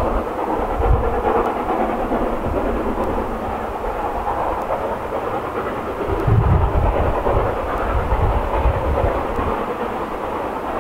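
Steam train running, a steady rumble with heavier low surges about a second in and again from about six seconds in.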